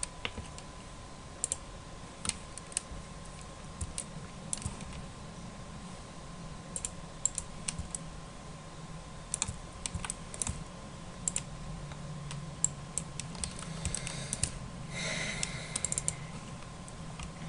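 Irregular single clicks of a computer mouse and keyboard, a few seconds apart, over a faint steady electrical hum, with a brief soft noise near the end.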